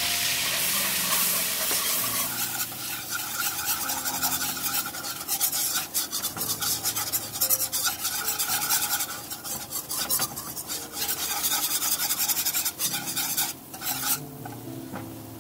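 Wire whisk scraping and stirring around a nonstick pan as a butter-and-flour roux sizzles. The sizzle is strongest at first, and the stirring grows quieter near the end.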